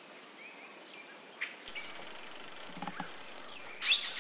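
Quiet outdoor ambience with scattered short bird chirps and whistles, and a brief louder sound just before the end.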